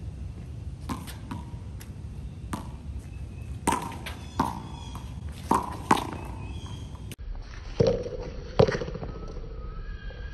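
Rubber handball striking a concrete wall and court floor during a rally: a string of sharp smacks, each with a short ringing ping. Two louder, lower-ringing hits come near the end.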